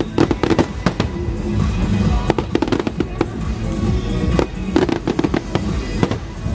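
Fireworks bursting and crackling in several quick clusters of sharp pops, with music playing steadily underneath.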